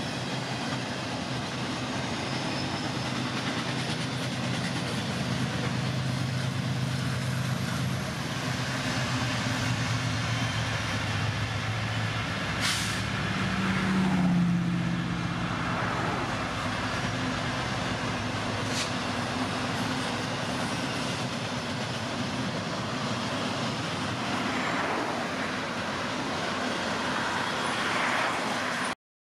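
Four Wabtec ES30ACi diesel-electric locomotives running together past at close range, their engines making a steady low drone over wheel and rail noise. About halfway through, a car passes close by on the road with a falling pitch, which is the loudest moment.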